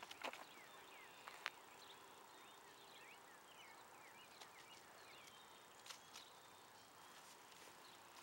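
Near silence, with faint bird chirps scattered throughout and a couple of soft clicks about a second and a half in.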